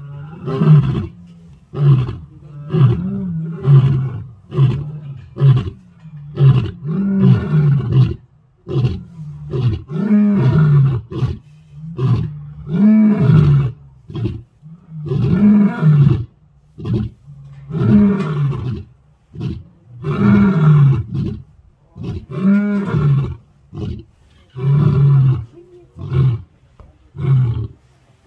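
Lions roaring in a long territorial bout: a steady series of deep, loud roars, each about a second long, repeating every one to two seconds.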